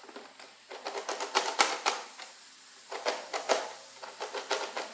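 Plastic clicks and rattles of a Nerf Modulus blaster being handled, in two runs of quick clicks: one about a second in and another about three seconds in.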